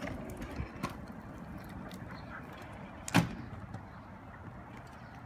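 Stunt scooter wheels rolling over rough asphalt, with one sharp clack of the scooter landing on the pavement about three seconds in and a couple of lighter knocks.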